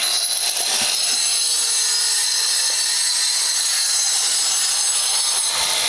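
Handheld angle grinder cutting a natural flagstone: the motor's high whine over the gritty rasp of the disc in stone, starting abruptly and running steadily.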